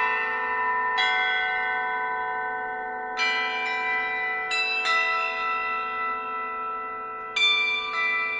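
Bronze church bells ringing. Bells of different pitch are struck every second or so, in small groups, each ringing on and slowly fading over the steady ring of a lower bell.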